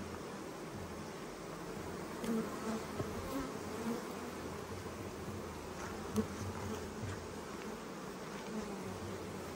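Honeybees buzzing in a steady drone at the entrances of a row of busy hives, with brief louder moments a few times as the sound swells.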